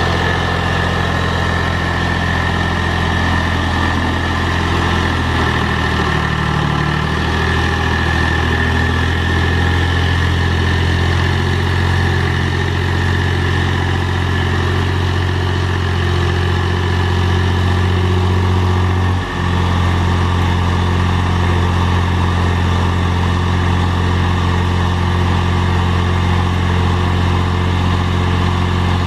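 Mahindra tractor's diesel engine running steadily under load while it drives through loose dirt with a box blade, with a slight change in engine note a few seconds in and a brief dip in the sound about two-thirds of the way through.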